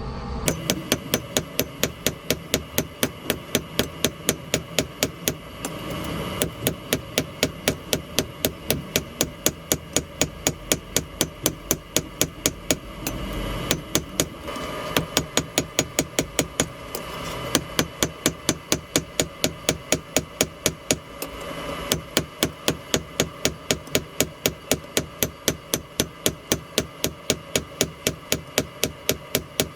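Blacksmith's hammer striking a hot railroad spike on an anvil, a steady rhythm of about three blows a second in several runs with short pauses between them.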